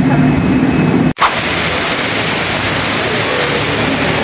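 Street traffic noise with a vehicle engine running, cut off abruptly about a second in, followed by a steady rushing of water from a wall fountain pouring into a pool.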